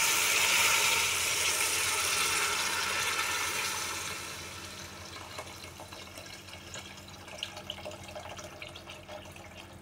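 Water poured in a stream into a metal pot of sautéed onion, tomato and spice base, splashing and gurgling as the pot fills. The pouring is loudest for the first four seconds, then goes on quieter with small crackles.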